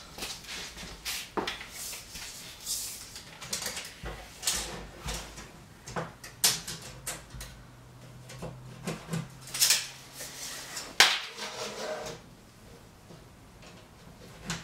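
Tape measure and pencil handling against a particleboard cabinet back while measuring and marking: scattered clicks, scrapes and light knocks, the sharpest snap about eleven seconds in.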